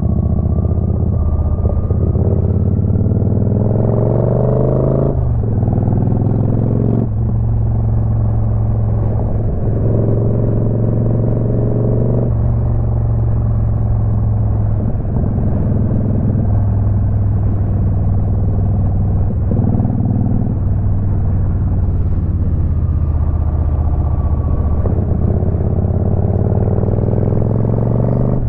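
Motorcycle engine running on the move, its revs rising and then falling back sharply several times, first about five seconds in.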